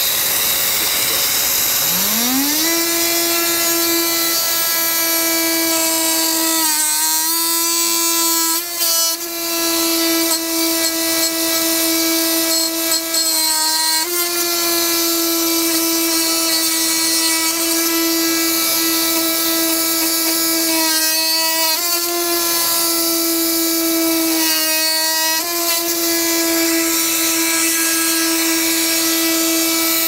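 Festool Vecturo OSC 18 cordless oscillating multi-tool spinning up about two seconds in, then running with a steady buzz as its blade plunge-cuts into solid oak. The pitch sags briefly four times as the blade takes load in the cut.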